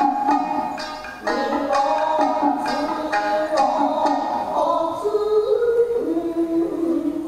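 Nagauta music led by shamisen, plucked in a run of sharp notes, with a few longer held notes in the second half.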